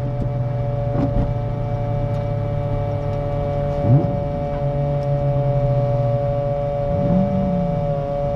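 C5 Corvette Z06's 5.7-litre LS6 V8 running at a steady, moderate speed, with a steady whine over it. About four seconds in the engine note briefly rises, and there is another short swell near seven seconds.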